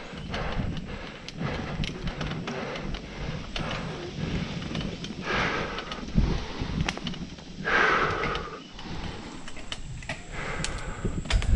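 Mountain bike riding fast down dirt singletrack: tyres running over packed dirt and leaves, with the bike rattling and knocking over bumps and roots. There is a heavier thump about six seconds in and two louder rushing bursts around five and eight seconds in.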